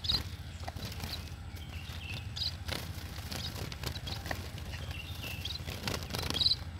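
A cageful of netted munias, mostly Javan munias, shuffling and fluttering against the cage bars with soft taps, and giving short high chirps now and then, the loudest near the end.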